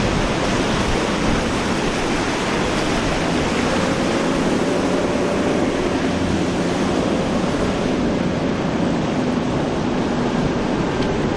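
Surf and churning wake water with the steady drone of a catamaran center-console's twin outboard motors running at speed, the engine tone coming through about four seconds in.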